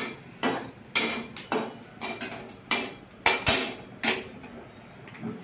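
Steel spoon scraping and knocking against a metal kadhai while stirring fennel seeds as they dry-roast, in a string of short, sharp, irregular scrapes and clinks.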